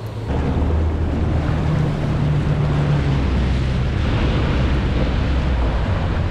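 Jet ski engine running with a steady low drone, under the rush of water around the hull and wind buffeting the microphone.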